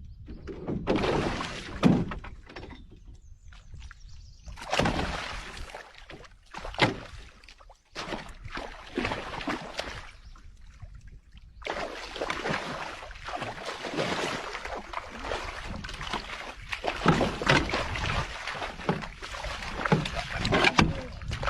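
Water splashing and sloshing around a small fishing boat in irregular surges, with a few sharp knocks against the hull.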